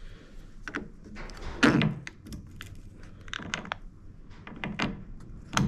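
Hard plastic parts of a Railblaza StarPort rail mount knocking and clicking as it is handled and lined up on its clamp on a stainless steel boat rail. The sounds are irregular, with the loudest a thump just under two seconds in and another sharp knock near the end.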